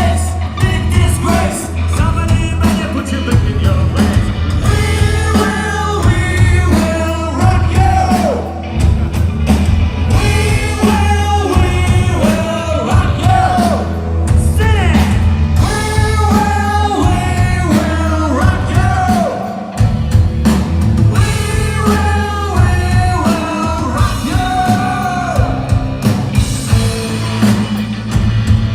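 Loud rock music: a sung vocal line over heavy drums and bass.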